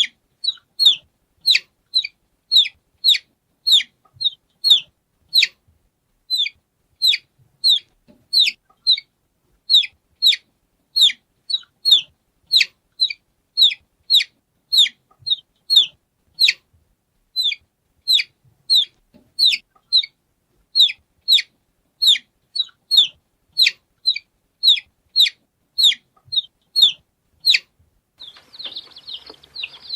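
A chick peeping, short falling peeps about two a second with silence between. Near the end it gives way to denser, continuous cheeping over a faint hiss.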